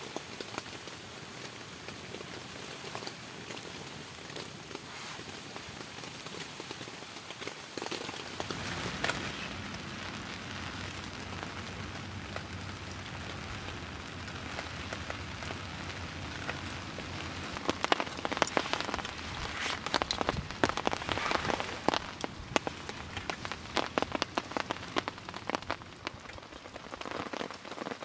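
Steady rain falling, then in the second half a run of sharp crinkling and crackling as aluminium foil wrapped around food on a campfire is handled and opened.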